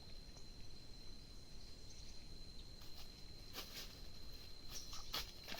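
An insect shrilling one steady high-pitched note without a break, over faint outdoor background noise, with a few short clicks about three and a half and five seconds in.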